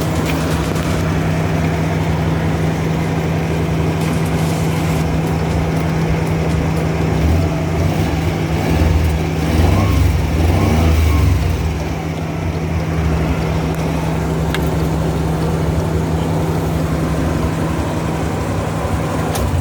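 Suzuki Multicab's F6A three-cylinder engine running steadily, growing louder for a few seconds around the middle before settling back.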